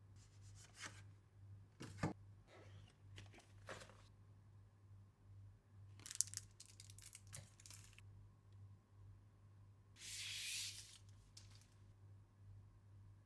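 Mechanical keyboard packaging being opened and handled: scattered soft rustles and light knocks, a sharp click about two seconds in, and a louder rasp lasting about a second, like tearing, about ten seconds in.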